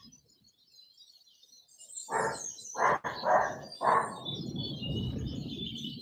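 Small garden songbirds chirping and twittering continuously in the background. About two seconds in come several loud low bursts, then a rougher low rumble that lasts to the end and is louder than the birdsong.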